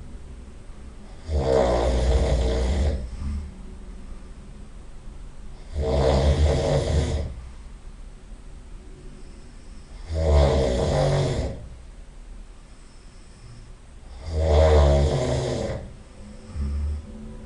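A person snoring loudly in sleep: four long snores, each about a second and a half, coming about every four seconds, with quieter breathing between them.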